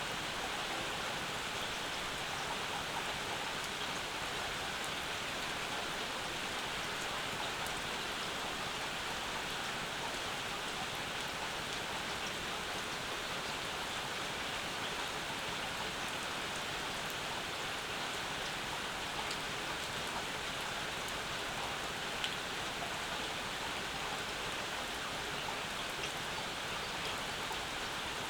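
Steady rainfall, with a few individual drops ticking close by.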